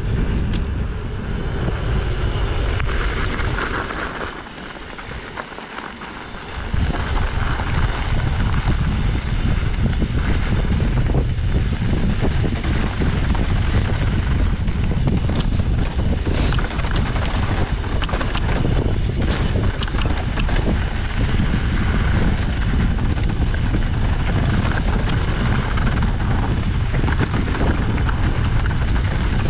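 Wind buffeting the camera's microphone as a mountain bike descends at speed, mixed with tyre rumble and scattered knocks as the bike rattles over the dirt trail. The wind noise eases for a couple of seconds about four seconds in.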